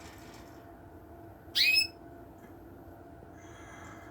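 A canary gives one short, rising, whistle-like call about one and a half seconds in, with faint high chirps near the end.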